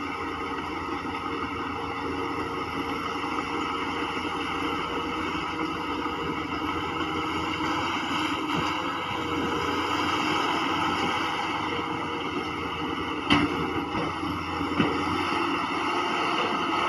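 Heavy diesel earthmoving machinery running steadily and growing gradually louder, with two sharp knocks about a second and a half apart near the end.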